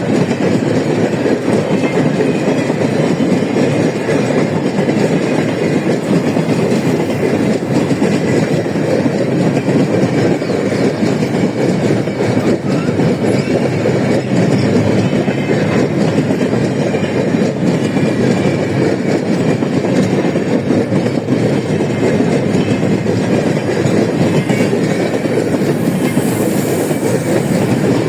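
Freight train of empty steel grain hopper cars rolling past, a steady loud rumble of wheels on rails.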